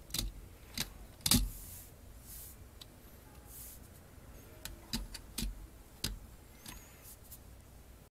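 Plastic clicks and knocks as a LEGO Technic model truck is handled: pressed down on its body and moved about on a table, the loudest knock about a second in, a scatter of lighter clicks later.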